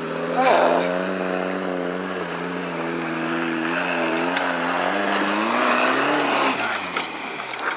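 Lifted Toyota 4Runner's engine pulling hard under load up a steep rocky climb, held at high revs with small rises and dips. About six seconds in the revs climb once more, then drop away and fade.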